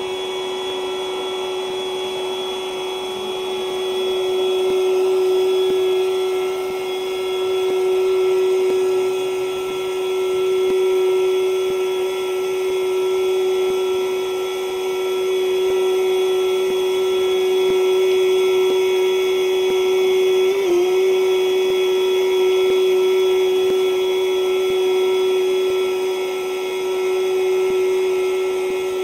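Haulotte boom lift's drive machinery running with a steady, high whine and overtones, sped up fourfold. About three-quarters of the way through the pitch briefly dips where the lift changes from driving forward to reversing.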